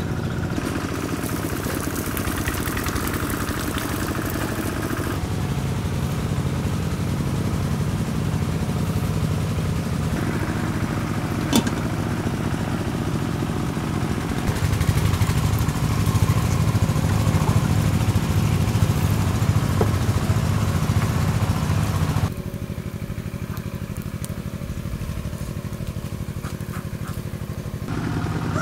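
A small engine running steadily, a low hum that grows louder partway through and drops suddenly a few seconds before the end.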